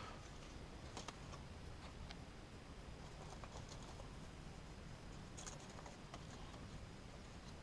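Faint, scattered light clicks and scrapes of dry dead sticks being handled and wedged into a woven stick cage trap, the sharpest about one second and about five and a half seconds in.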